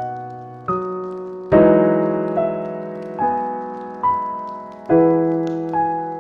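Slow, gentle solo piano: single notes and soft chords struck roughly once a second and left to ring and fade, with faint fireplace crackles underneath.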